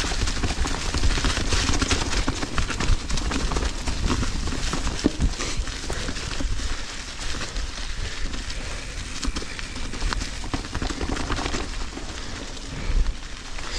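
Mountain bike rolling over dry leaf-covered dirt trail: tyres crunching and crackling through the leaves with rapid small clicks and rattles from the bike over bumps, over a steady low wind rumble on the helmet microphone.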